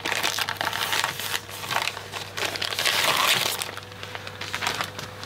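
Crinkling and rustling of plastic-wrapped sticker sheets being handled and sorted, an uneven run of crackles that swells around the middle.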